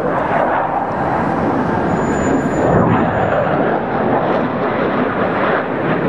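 Jet engine noise from F/A-18 Hornets flying in formation overhead, a steady loud rush that swells a little about three seconds in.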